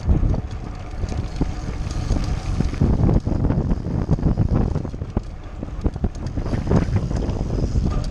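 Wind buffeting an action camera's microphone on a mountain bike riding over bumpy dirt and grass, with tyre rumble and frequent knocks and rattles from the bike.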